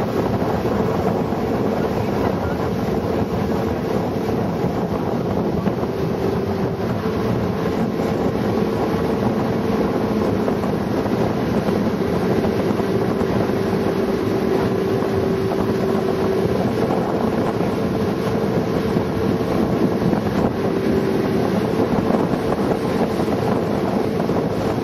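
Motor launch's engine running steadily at speed, a constant drone whose pitch shifts slightly now and then, with wind buffeting the microphone.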